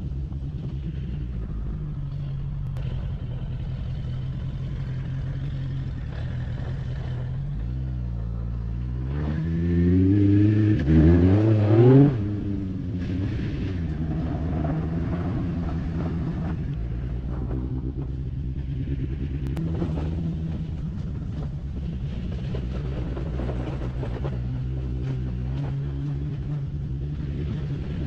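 Suzuki Bandit 1200S's inline-four engine running as the bike is ridden at low speed. About nine seconds in the revs climb and get louder for some three seconds, then drop off sharply and settle back to a steady pace.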